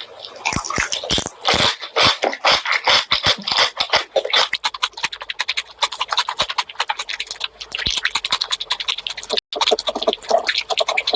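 Close-miked chewing and lip-smacking while eating pork leg curry with rice: a quick, irregular run of wet smacks and clicks.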